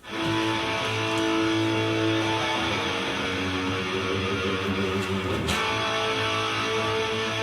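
Rock music with strummed electric guitar and bass, starting suddenly at full level.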